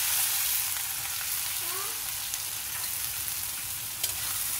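Freshly chopped onions sizzling in hot oil, a steady frying hiss. One short knock near the end.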